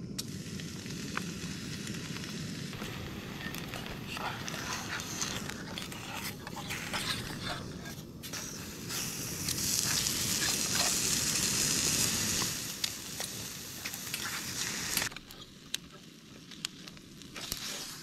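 Canister gas camping stove burning steadily under a small pan, with light clicks and taps of handling. About nine seconds in, minute steak sizzles loudly in the dry, oil-free pan for a few seconds. The sizzle then fades, and the stove's low burning sound drops away about fifteen seconds in.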